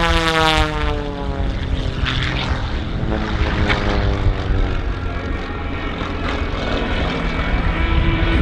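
Aerobatic propeller aircraft engine droning in a low fast pass, its pitch falling as it goes by. It settles into a steady drone as the plane climbs away.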